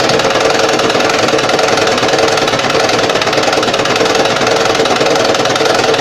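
Sewing machine running steadily at speed, its needle mechanism chattering in a fast even rhythm without a break.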